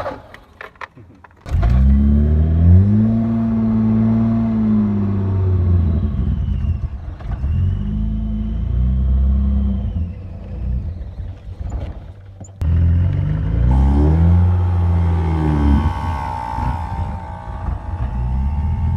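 BMW E30 engine starting abruptly about a second and a half in, then running with its speed rising and falling. It drops away suddenly for about a second near two-thirds of the way through, then runs again with a steady high-pitched squeal over it whose cause is not known.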